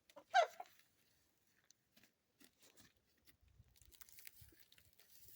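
A goat gives one short bleat about half a second in. Faint scattered clicks and soft rustling follow.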